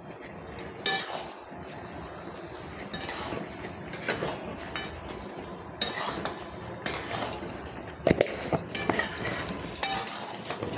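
A utensil stirring chicken in a pot of thick masala, with irregular knocks and scrapes against the pot every second or two over a steady hiss from the cooking, as the salt is mixed in.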